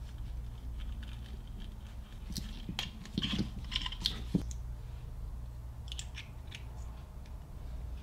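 Small clicks, taps and rustles of hands handling welding-cable parts (red cable, rubber connector boot, brass connector and copper sleeve), mostly in the middle of the stretch and again briefly later, over a low steady hum.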